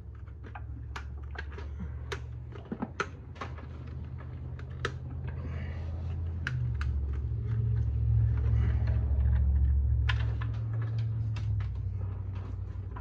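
Spark plug wires being worked off a distributor cap by hand: an irregular string of small clicks and snaps. Under them a low hum swells louder through the middle and eases off near the end.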